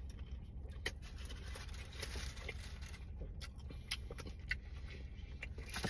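A person chewing a mouthful of Polish sausage sandwich, with a scatter of small wet mouth clicks over a low steady hum.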